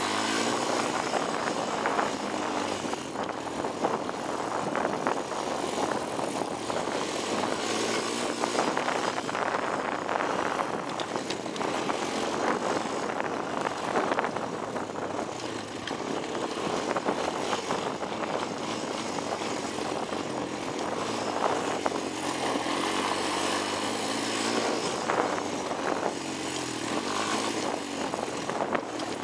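Honda 250EX ATV's single-cylinder four-stroke engine running under way over a rocky dirt trail, its sound swelling and easing every few seconds as the throttle changes.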